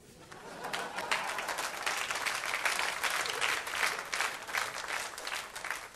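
Studio audience applauding, a dense patter of many hands that builds up over the first second and dies away near the end.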